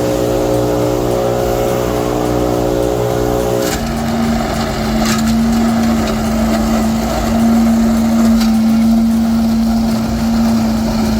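Two-stroke STIHL BR 800 backpack leaf blowers and a Billy Goat DL debris loader running steadily at full power. About four seconds in, the sound changes to a different steady drone with a strong hum, with a few brief rattles.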